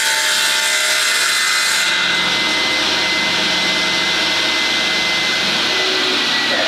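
Sliding panel saw with a 7.5 kW three-phase motor crosscutting a board. The blade cutting through the wood is heard for about the first two seconds, then the saw runs free with a steady high whine.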